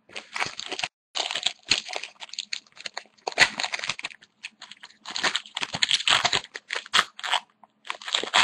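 A hockey card pack's wrapper being torn open and crinkled in irregular rustling bursts, with the cards handled.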